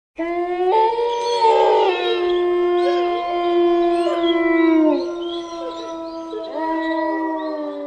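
A pack of wolves howling in chorus: several long, overlapping howls at different pitches, with new voices joining about a second in and again near the end, some sliding down in pitch as they tail off.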